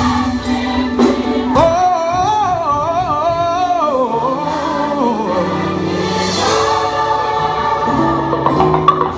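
Gospel choir singing with band accompaniment; about two seconds in a lead voice holds a long note with wide vibrato.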